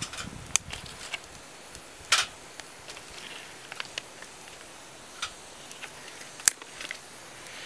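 Small dry twigs snapping: five sharp cracks scattered a second or two apart, the loudest near the end, over a faint steady hiss.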